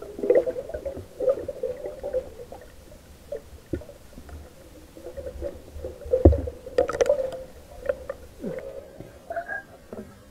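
Underwater water noise picked up by a submerged camera: irregular gurgling and bubbling with scattered clicks and knocks. The loudest knock comes about six seconds in, followed by a cluster of clicks.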